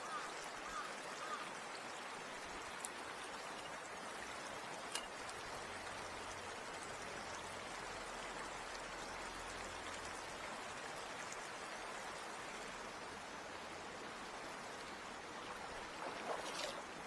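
Mountain stream water rushing steadily, with a couple of faint clicks.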